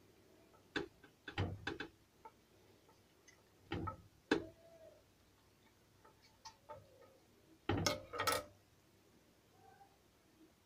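Kitchen knife knocking and clicking against a stone slab while slicing a raw chicken breast into cutlets: scattered sharp knocks in small clusters, the loudest near eight seconds in.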